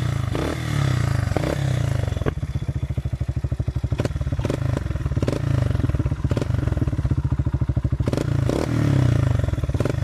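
Quad's engine idling through an aftermarket SC Project oval carbon exhaust, with the engine's firing pulses clearly heard. The revs rise briefly twice, once near the start and once near the end, and a few sharp pops come in between.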